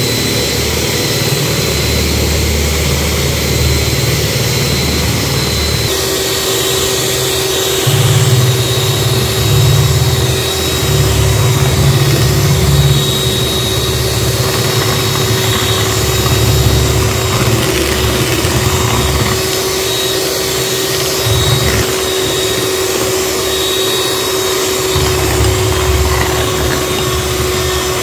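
Electric hand mixer running steadily, its beaters churning cake batter in a plastic bowl; the motor's whine changes pitch about six seconds in.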